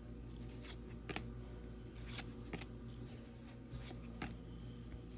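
Trading cards being handled and flipped through: a handful of short, dry card-on-card slides and flicks, over a steady low hum.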